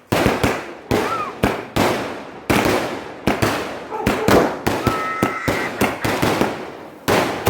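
Diwali firecrackers going off in a rapid, irregular string of sharp bangs, several a second, each with a short echoing tail.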